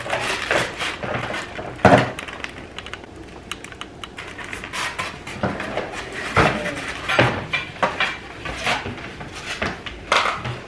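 Aluminium foil crinkling and foam takeout clamshell containers being opened and set down on a table: a string of irregular rustles and clicks, with a louder knock about two seconds in.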